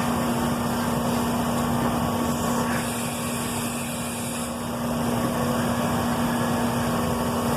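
CNC router running through an automatic tool change to drop off its 3/8-inch cutting bit: a steady mechanical hum with one held tone, and a brief hiss about three seconds in.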